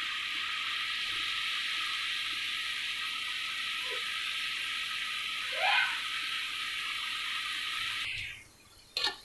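Sliced onions sizzling steadily in hot oil in an aluminium pressure cooker, a constant frying hiss that cuts off about a second before the end. A brief rising squeak about halfway through is the loudest moment, and a single click follows after the sizzle stops.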